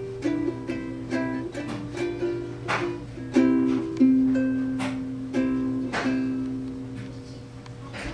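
Background music on a plucked string instrument: chords and short melody notes in a steady rhythm, each note striking and then fading.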